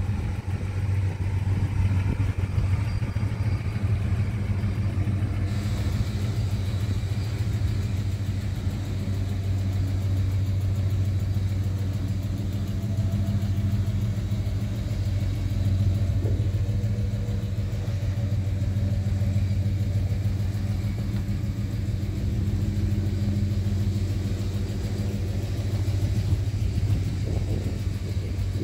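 Engine of a lifted 1990 Chevrolet Suburban idling steadily: a low, even engine note that holds without revving.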